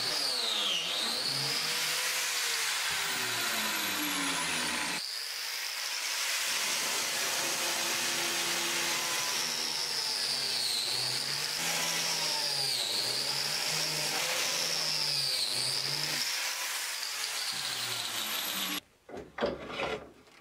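Plate (biscuit) joiner running and plunging slots into solid ash panels: its motor pitch dips each time the blade bites into the wood and climbs back as it is withdrawn, several times over. Near the end the motor stops and a few short knocks follow.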